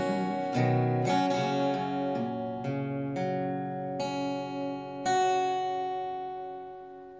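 Acoustic guitar playing the last bars of a song: several strummed and picked chords, then a final chord about five seconds in that rings out and fades away.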